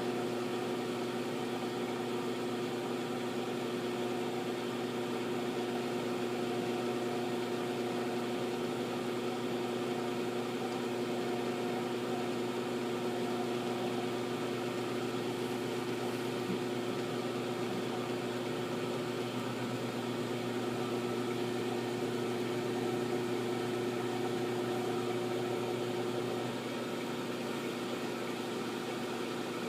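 Milling machine running steadily while slotting an M1911 pistol slide, giving a constant humming tone; the tone shifts slightly near the end.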